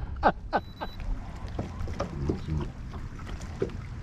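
Steady low rumble of open-air ambience aboard a small fishing boat on a lake. A few short voice sounds fall quickly in pitch about half a second in.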